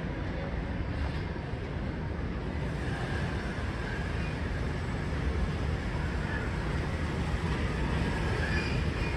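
R142 subway train approaching along the elevated track: a steady low rumble that slowly grows louder.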